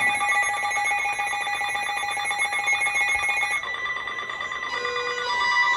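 Emergency alert attention tones from a received alert broadcast: a loud, steady electronic alarm tone that changes pattern about three and a half seconds in, followed by shorter alternating beeps. These tones signal that a warning message is about to be read.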